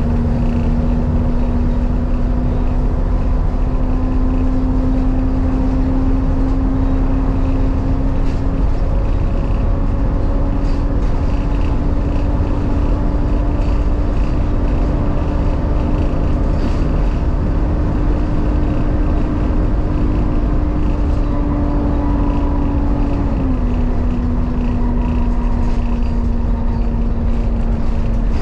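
Volvo B7 Gemini double-decker bus heard from inside the passenger saloon while under way: a heavy, steady engine and road rumble with a whine that slowly rises in pitch, drops suddenly about 23 seconds in, then starts rising again near the end. Light rattles from the body and fittings are scattered through it.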